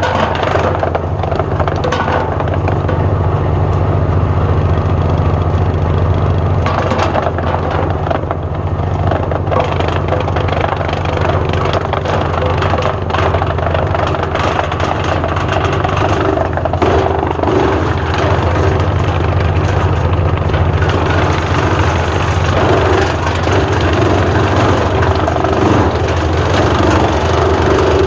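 The Lombardini LDW 1503 three-cylinder diesel of a ProTrac MT8 minitractor runs steadily, driving a Farmi CH 160F disc wood chipper through the PTO. Scattered light clicks and knocks come through over it.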